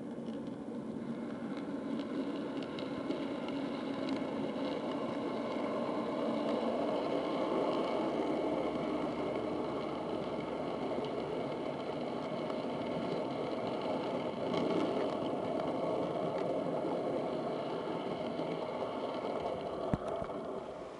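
HO-scale model diesel train running past close by on the layout track: a steady hum and rumble of locomotive motors and wheels on rail that builds over the first several seconds, then holds.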